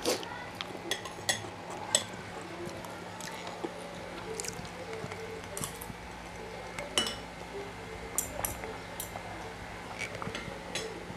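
Metal spoon clinking against ceramic plates and bowls while eating, with scattered light clinks about once a second. A faint steady hum runs underneath.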